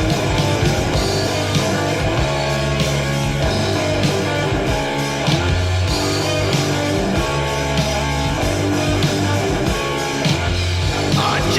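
Raw, fast heavy metal played by a band: distorted electric guitar riffing over bass guitar and a drum kit, in a repeating pattern.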